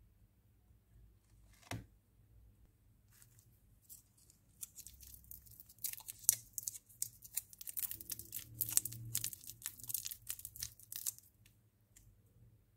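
Foil lollipop wrapper being crinkled and torn open by hand: a dense, irregular run of crackles from about three seconds in until near the end, after a single click a little before two seconds.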